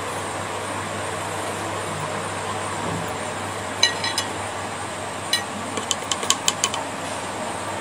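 A paintbrush clinking against the rim of a jar: three light taps about four seconds in, then a quicker run of about seven taps between five and seven seconds. Underneath is a steady background hum and hiss.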